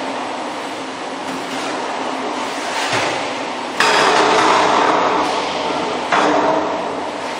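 Steady machinery din of a running snack pellet frying line and other food-factory equipment; it turns suddenly louder about four seconds in and again about six seconds in.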